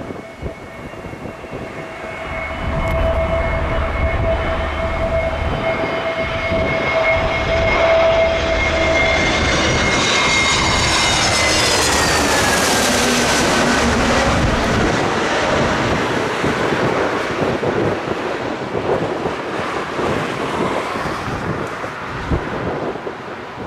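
Airbus A321 jet airliner passing low overhead on final approach. Its engine whine holds a steady pitch, then drops about ten seconds in as the plane goes over, while the jet roar builds to a peak and then slowly fades.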